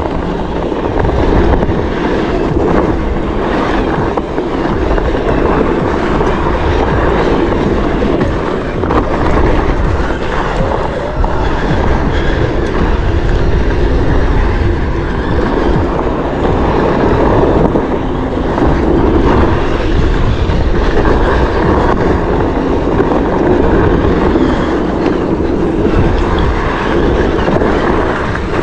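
Steady wind rushing over the microphone, mixed with a Onewheel's tyre rolling fast over a dirt trail.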